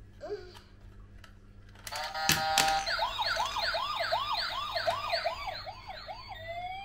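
Battery-operated toy motorbike switched on about two seconds in: a click and a short steady beep, then its electronic siren sound effect warbling quickly, about three rises and falls a second, with a slower rising wail joining near the end.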